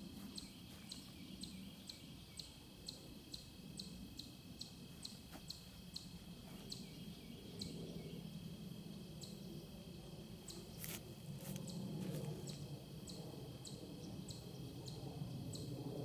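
Faint outdoor ambience: insects chirping in a steady rhythm, about two to three short high chirps a second, over a steady high insect drone and a low background rumble.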